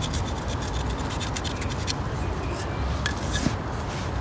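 Small knife blade scraping at the muddy metal frame of a recovered pistol, searching for markings: a quick run of short scratches for about two seconds, then a few single scrapes.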